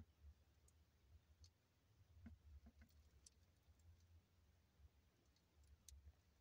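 Near silence: a faint low rumble with a few scattered faint clicks.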